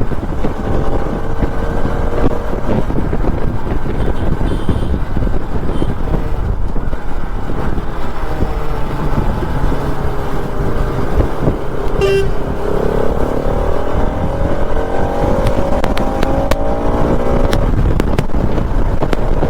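Steady road noise of a motorcycle riding through town traffic, with a short vehicle horn toot about twelve seconds in and longer horn or engine tones rising in pitch over the next few seconds.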